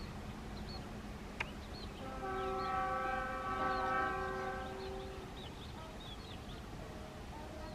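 Locomotive horn of a passenger train moving away, sounding one long steady blast of about three seconds, a chord of several notes, starting about two seconds in. Small birds chirp throughout, and there is one sharp click shortly before the horn.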